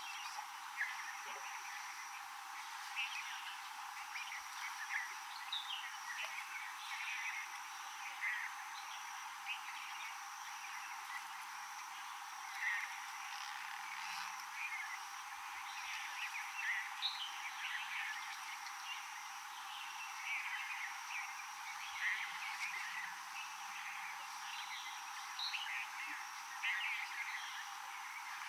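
Rainforest ambience: a dense scatter of short, high chirps and calls from small animals over a steady high-pitched tone and an even hiss.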